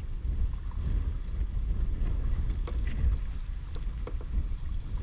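Wind buffeting the microphone in an uneven low rumble, with a few faint clicks.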